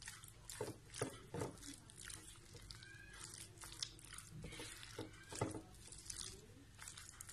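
Spatula stirring and mashing chopped boiled egg with mayonnaise and cream cheese in a glass bowl: faint, irregular squishing with scattered scrapes and taps against the glass.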